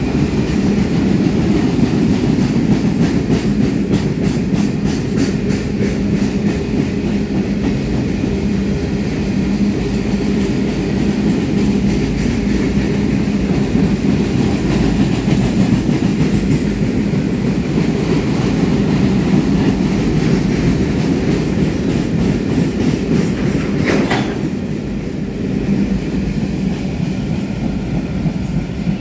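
Freight train of empty steel-coil wagons rolling past: a steady rumble with the wheels clicking regularly over the rail joints. There is one brief squeal near the end, and then the sound eases a little as the last wagons go by.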